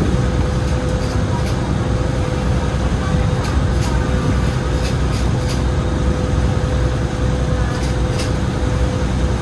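A river boat's engine running steadily under way, a constant low drone with a steady hum, over water rushing past the hull.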